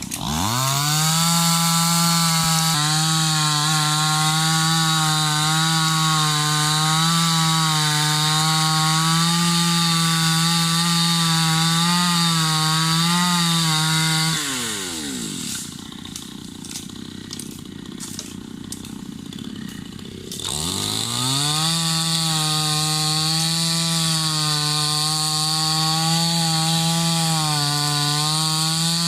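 Chainsaw revved up and cutting wood at high speed, its pitch wavering slightly under load. About halfway through it drops back to idle for several seconds, then revs up again and cuts on.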